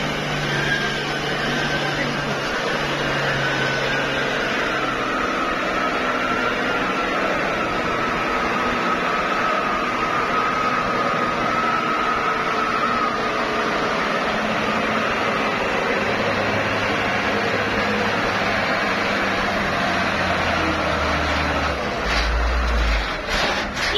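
Mitsubishi Fuso dump trucks' diesel engines running steadily, with a thin high whine that slowly falls in pitch over the first half. A deeper, louder low rumble builds in the last several seconds.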